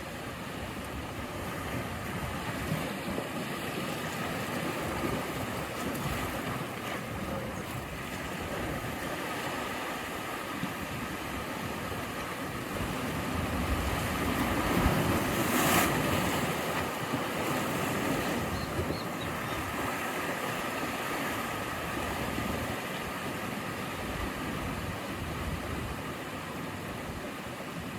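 Sea waves breaking and washing on the shore, a steady surf noise with one bigger wave swelling and crashing a little past halfway.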